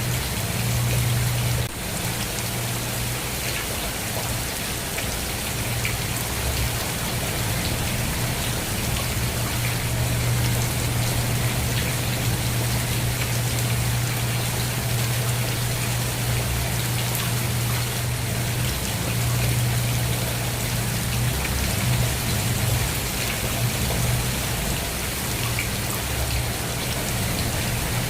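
Steady rain falling: a continuous, even hiss of drops with a steady low hum underneath.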